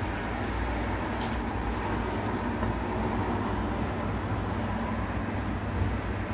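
Steady low machine hum over a constant noisy background, with a few faint clicks.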